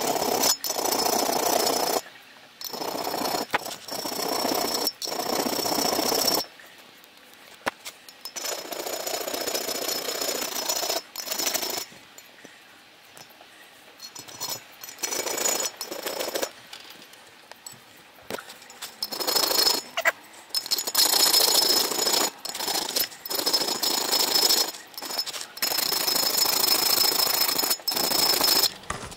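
Hand file rasping against the steel steering stem of a Yamaha XJ900S Diversion at its bearing seat, in repeated strokes with a thin squeal, quicker and louder in the last third. The file is dressing the seat where the chisel damaged it, to leave it free of burrs.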